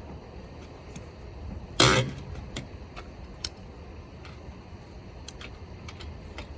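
Scattered light metallic clicks and clinks from tools being handled during a roadside tire change, with one loud, short clank about two seconds in.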